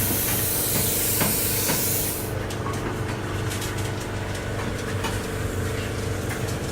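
Plasma cutter cutting through 10 mm plate: a loud, steady hiss of the air-plasma arc that cuts off suddenly about two seconds in. A steady machine hum continues underneath, with faint ticking after the arc stops.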